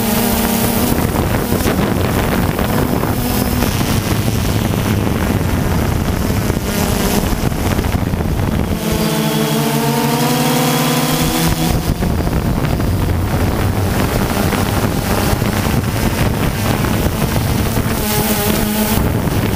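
DJI Phantom 2 quadcopter's motors and propellers buzzing steadily in flight, picked up by the GoPro mounted under it, with wind rushing over the microphone. About halfway through, the hum's pitch shifts and wavers for a couple of seconds as the motors change speed.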